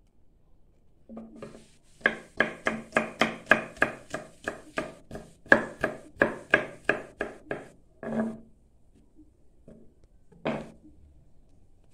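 Chef's knife chopping green stems on a wooden cutting board: a quick, steady run of about four strikes a second lasting several seconds, followed by a couple of single knocks near the end.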